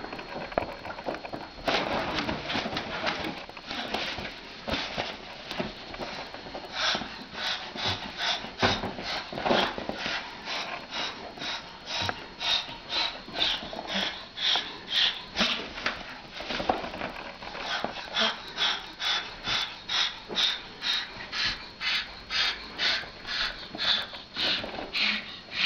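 An animal making rhythmic breathy huffs or puffs, sparse at first and then regular at about two to three a second through the second half.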